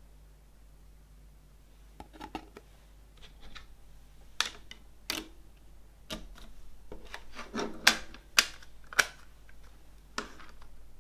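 A CD and its packaging being handled: about six sharp clicks and taps, the loudest near the middle, with softer rustling between them.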